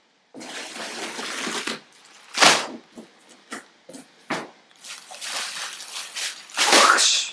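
Clear plastic poly bags of clothing rustling and crinkling as they are handled and dropped onto a pile. There is a stretch of steady rustle, then louder sharp crackles about two and a half, four and a half, and seven seconds in.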